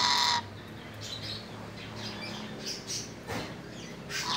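Untamed lory parrots (nuri) calling: a loud harsh screech that stops about half a second in, a run of quieter short calls, then another loud screech near the end.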